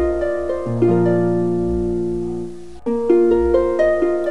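Background music: a gentle plucked-string melody of rising notes that ring and fade. A low bass note comes in under it about two-thirds of a second in, and the phrase starts over near the end.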